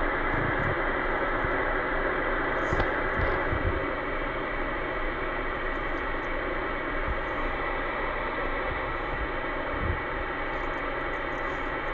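CB radio receiver hissing with steady static on channel 38 lower sideband, no station coming through: the open channel heard between transmissions while waiting for an answer to a CQ call.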